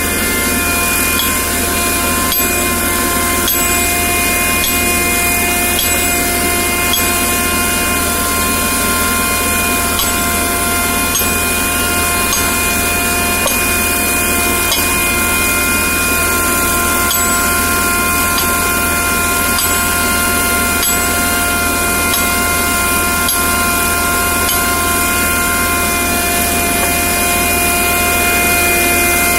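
A machine running steadily at a constant speed, with an even whine over a broad hiss and a low rumble.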